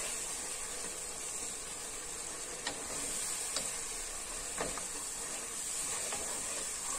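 Boiled beef chunks and tomato paste sauce sizzling in a granite-coated pot while a wooden spoon stirs them. A few light knocks of the spoon against the pot come through the steady frying hiss.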